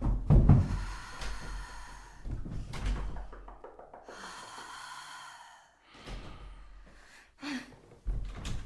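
A person gasping and breathing hard in a holophonic (binaural 3D) recording, with a few dull thuds.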